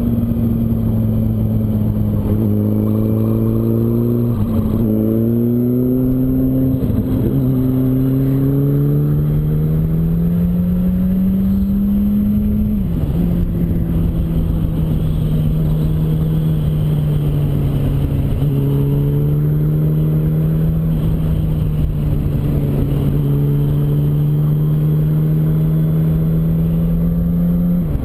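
Yamaha R1's inline-four engine running under way, its pitch holding, then climbing for several seconds before dropping sharply about halfway through as it changes up a gear, then easing slowly down.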